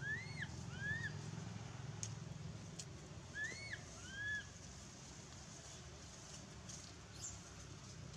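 Four short, high animal calls that each rise and fall in pitch, in two pairs: one pair right at the start and another about three and a half seconds in, over a faint low rumble.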